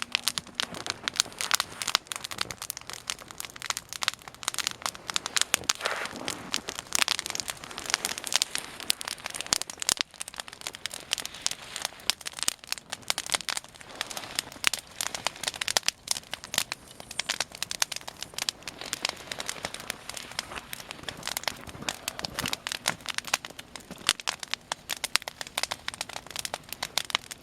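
Wood campfire crackling, with a dense, irregular run of sharp snaps.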